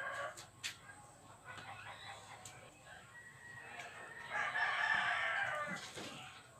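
A rooster crowing: one long call about four seconds in.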